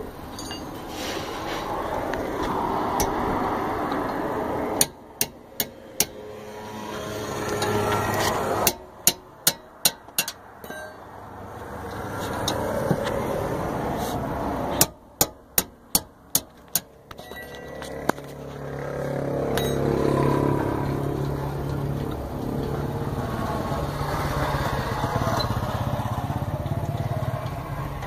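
Wrench work on a Toyota Corolla's rear brake caliper bolts: three short runs of sharp metallic clicks, about five in each, over passing vehicle noise that rises and falls. A low steady hum sets in about two-thirds of the way through.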